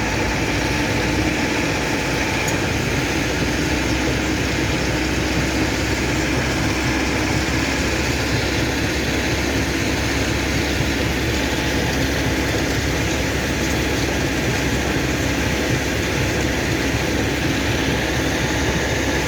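Stone crusher running steadily at a quarry, a constant loud mechanical rumble with no separate crushing blows standing out.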